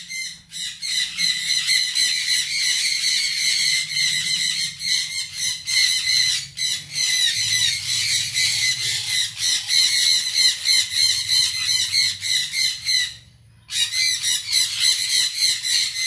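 Sun conure chicks giving raspy food-begging calls, rapid and almost unbroken, with one short pause late on.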